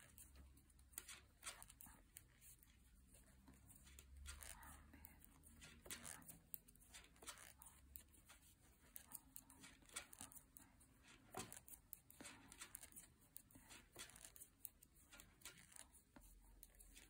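Faint, irregular clicks and soft rustling of metal circular knitting needles and yarn as stitches are knitted one after another.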